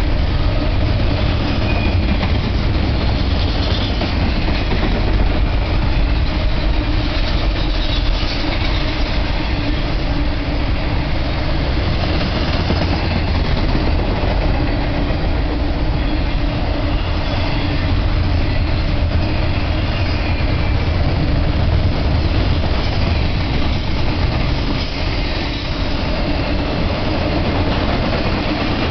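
Double-stack intermodal freight train's container-laden well cars rolling past: a steady, heavy rumble of steel wheels on the rails, with some clickety-clack.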